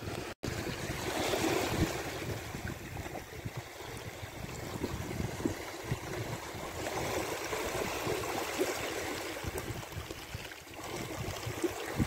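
Small sea waves lapping and washing over a stony, sandy shore, swelling and ebbing, with wind rumbling on the microphone underneath.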